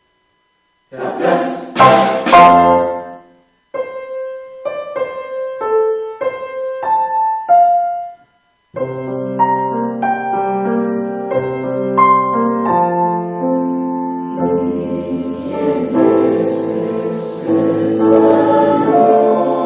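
Background music: after about a second of silence, a loud opening burst, then a short melody of single notes on a piano-like keyboard, a brief pause, and fuller sustained chords with a melody over them.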